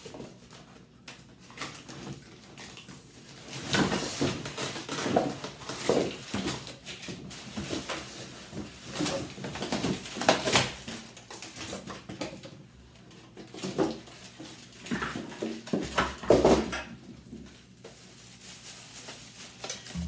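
Noisy rustling and crinkling of plastic wrapping and cardboard packaging as parts are pulled out of a box, in irregular bursts that are loudest a few seconds in and again near the end.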